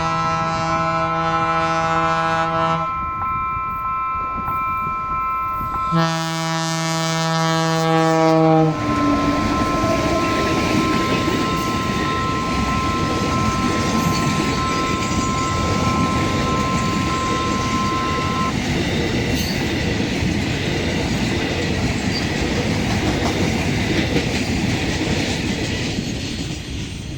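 Locomotive air horn sounding a steady chord twice, each blast about three seconds long, followed by a heavy freight train rolling past with the rumble and clatter of wheels on rail and a thin steady high whine for about the next ten seconds.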